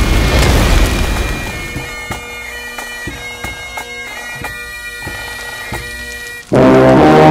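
Electronic noise soundtrack: a loud rumbling noise fades over the first second or two and gives way to quieter steady tones broken by sharp glitchy clicks. About six and a half seconds in, a loud drone of several held pitches cuts in suddenly.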